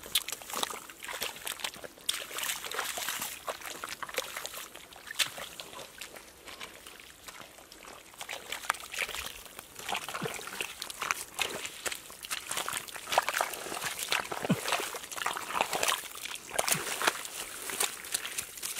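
Hands digging and groping through soft wet mud and shallow muddy water, giving irregular squelches and sloshes with no steady rhythm.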